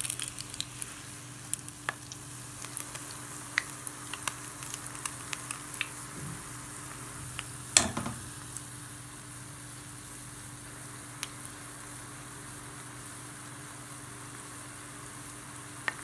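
Jalebi batter deep-frying in hot oil in a cast-iron skillet: a steady sizzle with frequent small pops and crackles, which thin out to a plain hiss about halfway through. About eight seconds in, a single loud knock.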